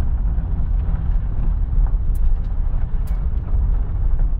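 Steady low rumble of road and drivetrain noise inside the cabin of an electric-converted Mitsubishi Starion on the move, with no engine note.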